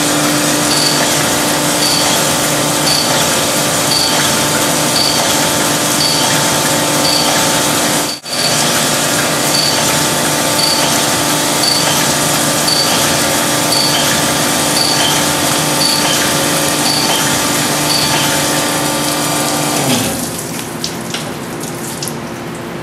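Sunnen CV616 cylinder honing machine running steadily as its diamond hone works a Nikasil-plated motorcycle cylinder, with a faint tick about once a second. The sound drops out briefly about eight seconds in, and a little before the end the machine winds down and stops.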